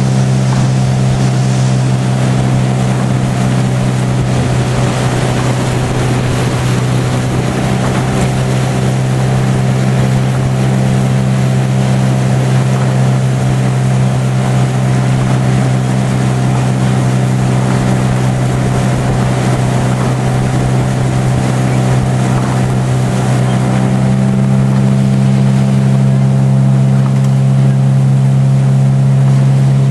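Outboard motor of a following coach's launch running at a steady cruising speed, with wind and water hiss. The engine hum grows a little louder about three-quarters of the way through.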